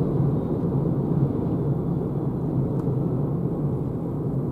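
Steady low road and tyre rumble inside the cabin of a Renault Zoé electric car driving at about 60 km/h, with no engine note.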